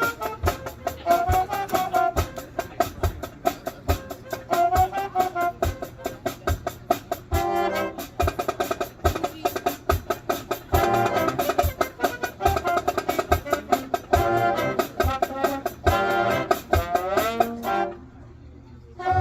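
Marching band brass and drums playing with a steady beat, about two drum strokes a second under held brass chords, then cutting off abruptly near the end.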